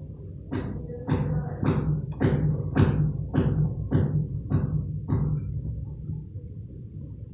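Repeated knocking at the base of a PVC drain pipe set in brick rubble: about nine even blows, a little under two a second, each a dull thud with a sharp click, growing fainter over the last few before a pause.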